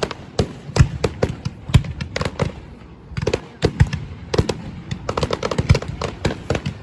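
Fireworks going off in a rapid, irregular barrage of sharp bangs and crackles, many bursts a second, with a short lull about three seconds in before it picks up again.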